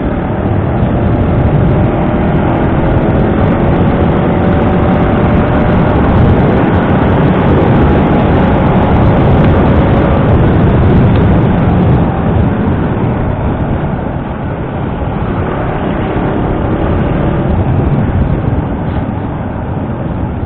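Wind rush on the action-camera microphone over a motor scooter's engine while riding. The faint engine tone drifts slightly in pitch. The rush is loudest in the first half and eases about twelve seconds in.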